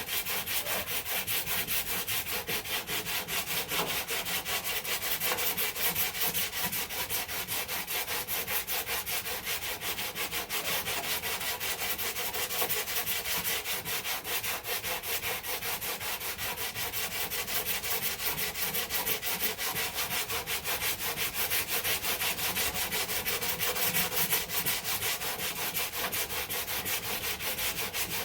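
Hand sanding block with 100-grit paper rasping over cured body filler in rapid, even back-and-forth strokes, levelling the filler over a dent repair.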